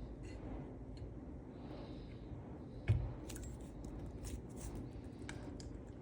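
Small metallic clicks and scrapes of a tool being worked into a Securemme 3+3 lock cylinder to break its anti-pick element, with one dull knock about three seconds in followed by a run of light clicks.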